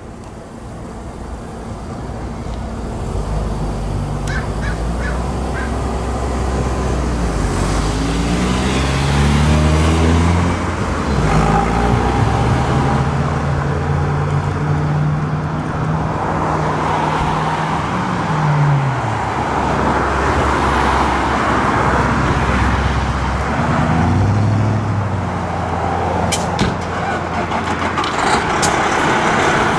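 Fire ladder truck's diesel engine running while parked, revving up about a third of the way in, holding a higher speed for several seconds, settling back, then revving up again near the end.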